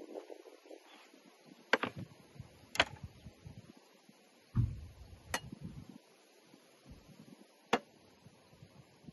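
Cooking gear being handled on a wooden slatted table: a few sharp clicks spread out, and one dull knock about four and a half seconds in, as the knife and baking tray are set down among the food.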